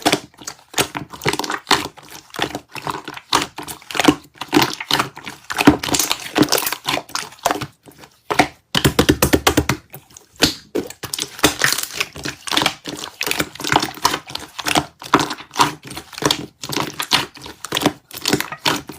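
Slime being squished and pressed by hand, making a quick run of sticky clicks and small crackling pops, with a faster even burst of clicks about nine seconds in.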